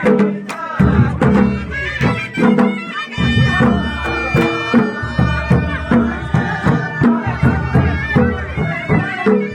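Pahari nati folk music: a steady, driving drum beat with a reedy wind instrument holding long notes over it in the middle of the stretch.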